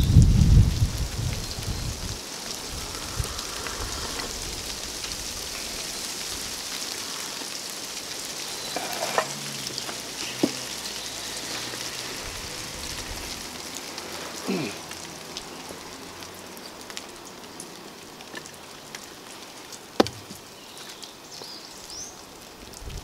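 Steady light rain pattering, with a few sharp clicks and knocks over it, the loudest about twenty seconds in.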